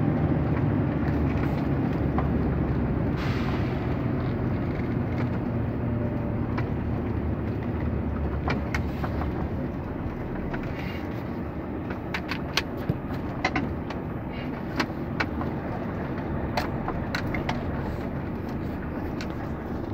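Vehicle engine and road noise heard from inside the cab, a steady low rumble that slowly eases as the vehicle slows down. In the second half there are scattered sharp clicks or rattles.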